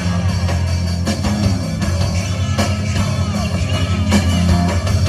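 Loud rock music with drum hits over a sustained heavy bass line.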